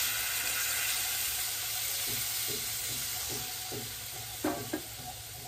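Hot water poured into a kadai of fried brinjal and potato in hot oil, sizzling and hissing hard at first, then dying down steadily over a few seconds. A couple of light knocks near the end.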